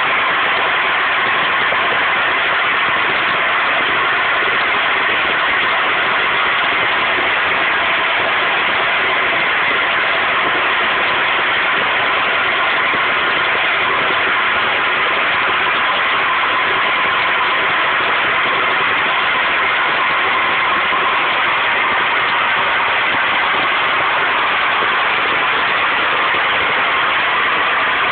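Open gas well blowout: high-pressure natural gas jetting uncontrolled from the well, a loud, unchanging rushing hiss.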